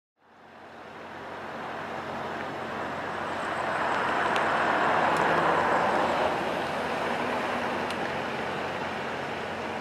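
Road traffic: a steady rush of passing vehicles, fading in at the start, swelling as one vehicle passes close about halfway through, then easing.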